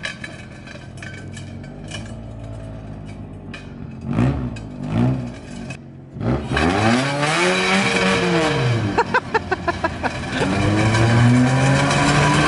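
Toyota AE86 Corolla engine running on bare wheel rims, with no tires. For the first half it runs softly with a couple of short blips. From about six seconds in it revs hard, rising and falling twice with a fast stutter between the two revs, over a harsh grinding noise.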